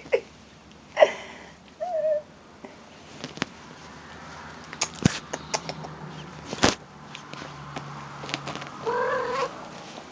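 Domestic cat meowing: a short meow about a second in, a small chirp just after, and a longer meow near the end, with a few sharp clicks in between.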